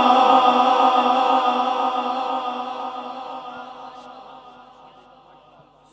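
The end of a male Quran reciter's long held melodic note echoing through a PA sound system, its wavering tone fading away steadily over about five seconds.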